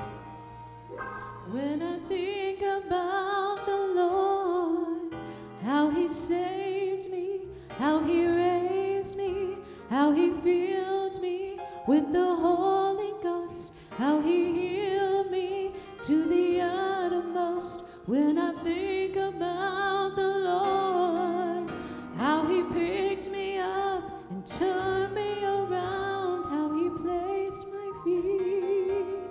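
A woman singing a gospel song solo into a microphone over a soft instrumental accompaniment, in phrases of about two seconds with vibrato on the held notes.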